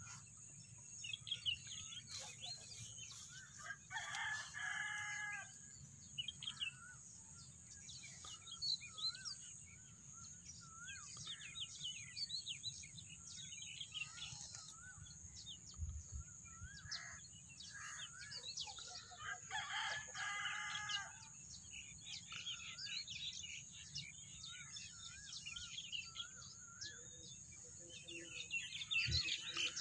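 A rooster crows twice, about fifteen seconds apart, each crow lasting about a second and a half. Small birds chirp and warble throughout, over a constant high-pitched buzz.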